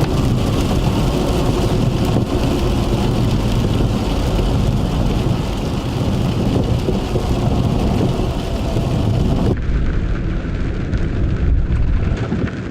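Thunderstorm: hard rain and wind noise over a deep, continuous rumble of thunder. The sound changes abruptly about three-quarters of the way through and loses its highest hiss.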